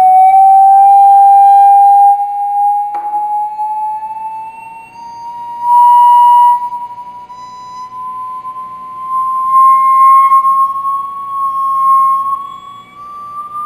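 A pure, whistle-like tone from a sand-covered square Chladni plate driven by a vibrator, its pitch sweeping slowly upward; it swells loud each time the sweep reaches one of the plate's resonances, where the sand gathers into a new node pattern. A single sharp click about three seconds in.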